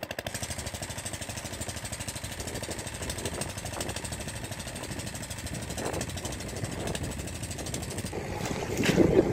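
Small engine of an irrigation water pump running steadily with a rapid, even beat. A burst of louder noise comes near the end.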